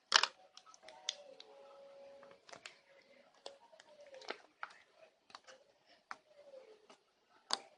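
Homemade slime being squeezed and handled by hand, making soft, irregular sticky clicks and pops.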